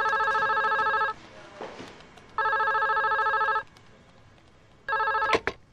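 Telephone ringing with a trilling electronic ring: two full rings about a second long, then a third ring cut short as the call is answered.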